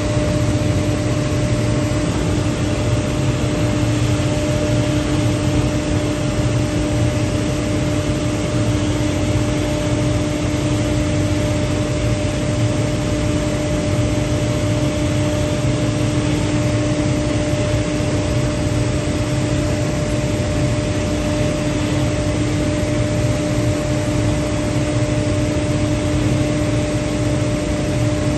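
SCM Record 132 CNC machining centre at work: its spindle runs with a steady whine while a V-bit engraves lettering into a wooden board, over a constant machine hum and rush of noise.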